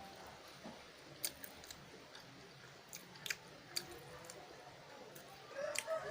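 Close chewing of spicy instant noodles mixed with long beans and shallots, with a few sharp clicks scattered through it.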